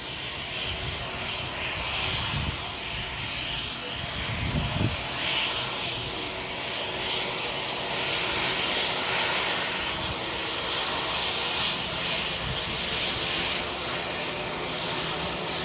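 Jet airliner engines running steadily, heard from outside, with gusts of strong wind buffeting the microphone, the strongest about four to five seconds in.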